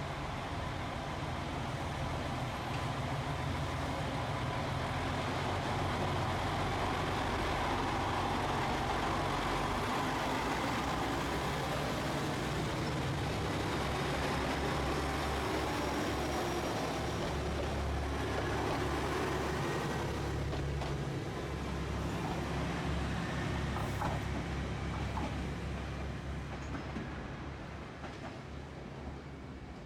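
Diesel train running past on the line, a steady engine drone and rolling noise that swells over the first few seconds, holds, and fades away near the end.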